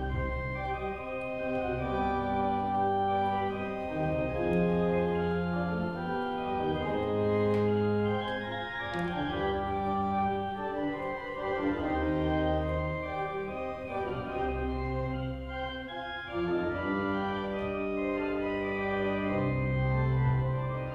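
Organ music: slow, held chords that change every second or two over a sustained low bass.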